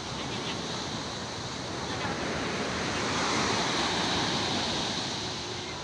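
Big sea waves breaking and washing, swelling to their loudest about halfway through and then easing off.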